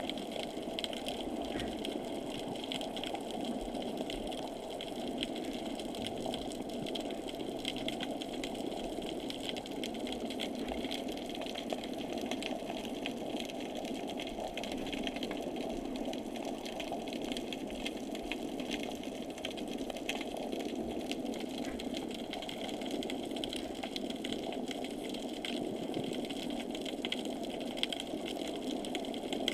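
Muffled underwater noise heard through a GoPro's waterproof housing: a steady low rush with a faint, fine crackle above it.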